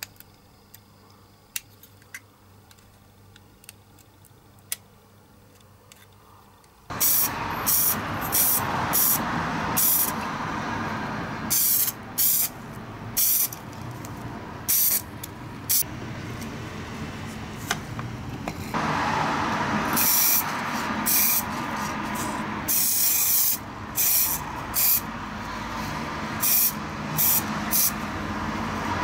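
A utility knife blade trimming a small plastic part, giving a few faint sharp clicks. About seven seconds in, spray paint is applied to the part in about twenty short hissing bursts over a steady background noise: coats of epoxy primer and then yellow paint.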